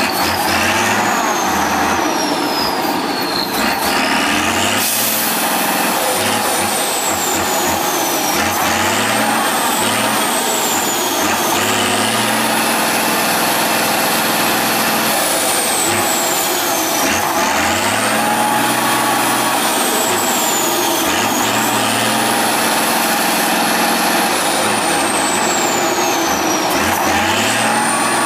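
Tatra 815 6x6 trial truck's diesel engine revving hard again and again as its wheels spin in deep mud, while a high whistle climbs and falls with each rev.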